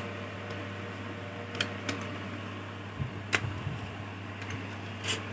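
A few short, sharp plastic clicks from pressing on and handling a laptop DVD drive's front bezel, the loudest a little past the middle, over a steady low hum.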